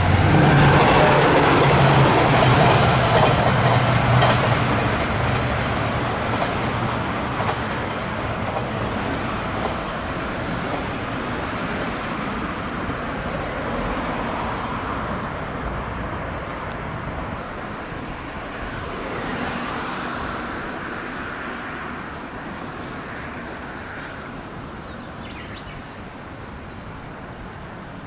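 KiHa 66/67 diesel railcar running past with its diesel engine loud at first. The train noise then fades steadily as it moves off.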